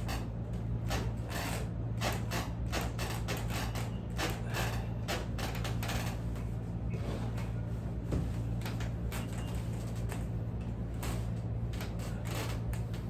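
Irregular rubbing, pressing and tapping noises of hands working over a person's back during a massage, a few per second and busiest in the first half, over a steady low hum.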